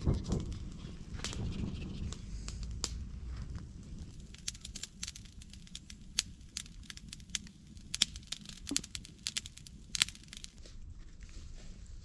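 Irregular sharp crackles and snaps, thickest in the middle stretch, over a low rumble that dies away in the first couple of seconds.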